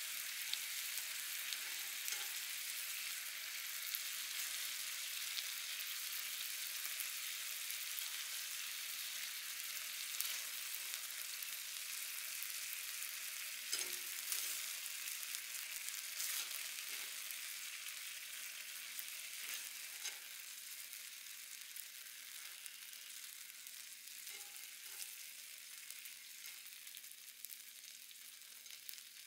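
Food sizzling in a hot frying pan: a steady high hiss with scattered crackles and pops, fading slowly over the last third.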